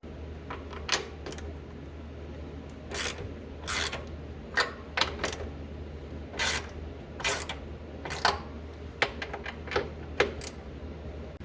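Hand tools working on the C6 Corvette's differential mount nuts: scattered sharp metallic clicks and clinks of wrench and socket on steel, some ringing briefly, over a low steady hum.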